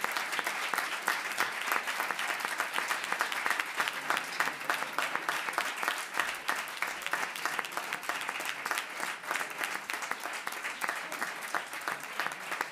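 Audience applauding: a dense, steady stream of many hands clapping.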